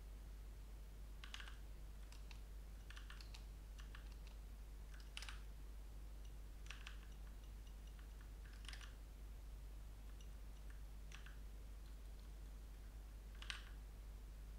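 Faint, sparse keystrokes on a computer keyboard: about ten scattered single taps and short runs, the loudest near the end, over a steady low hum.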